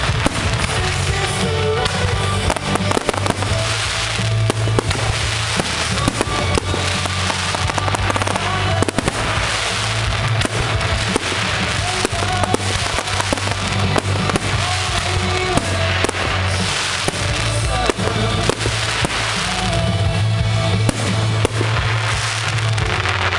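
A fireworks display going off in quick succession, with many sharp bangs and crackles from bursting shells, over loud music played throughout.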